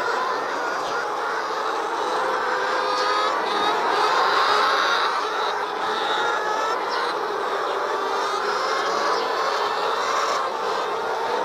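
A flock of laying hens clucking and cackling at once, a steady din of many overlapping short calls: the calls hens make around laying eggs.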